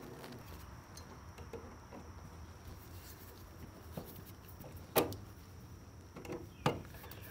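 Handling of lineman's pliers on the wires at an electrical box: faint fiddling noise with a handful of sharp clicks, the loudest about five seconds in and again near seven.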